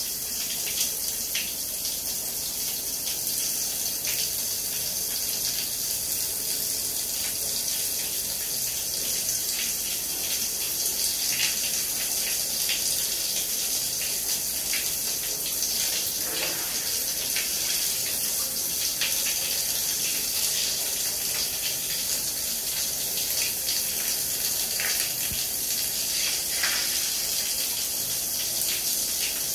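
Shower running: a steady hiss of water spray on a tiled floor, with a few brief splashes as feet in soaked socks step on the wet tiles.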